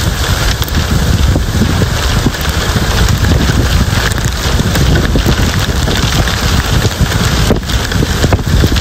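Strong gusting storm wind blowing hard across the microphone, a loud, constant rush with heavy low buffeting that swells and eases, as a dust storm drives sand across open ground.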